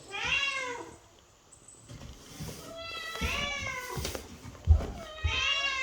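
Domestic cat meowing three times; the second and third meows are long, drawn-out calls. A short thump comes between the second and third meows.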